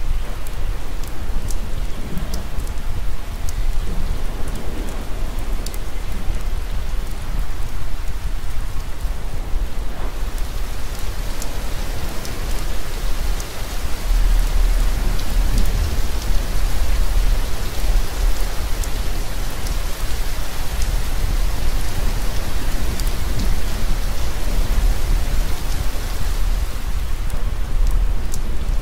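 Heavy rain falling steadily, with sharp drop ticks and a deep rumble underneath. It grows fuller and louder about halfway through.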